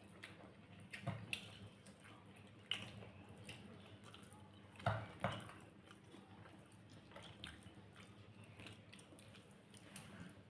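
Close-up eating sounds: chewing a mouthful of rice and curry, with scattered wet mouth smacks and small clicks. The loudest are two smacks about five seconds in.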